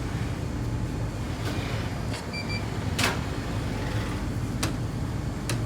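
Industrial tumble dryer being started: a steady low machine hum, two short electronic beeps a little over two seconds in, then a few sharp clicks, the loudest about three seconds in.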